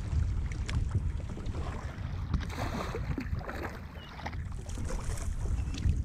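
Wind rumbling on the microphone over water sloshing against a fishing kayak as it is paddled, with a splashier stretch about halfway through and a few light knocks.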